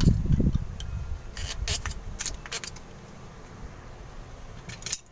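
Light metallic clicks and clinks of a diesel fuel filter and its water-sensor bottom piece being handled and fitted together by hand. The clicks are scattered, several close together in the first half and one more near the end, with a brief low rumble of handling at the very start.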